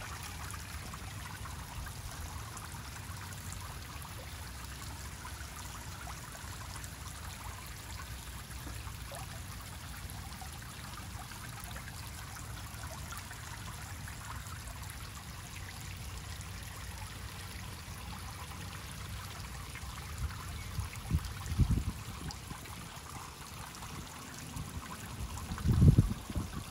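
Small pond fountain splashing steadily, its spray falling back onto the pond surface. Two brief low rumbles come late on, the second, near the end, the loudest.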